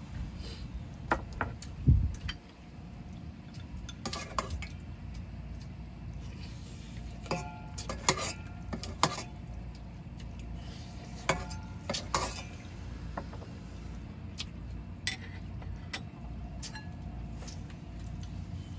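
Irregular clinks and knocks of hard objects being handled, a few with a brief ringing tone, over a steady low hum. A dull thump comes about two seconds in.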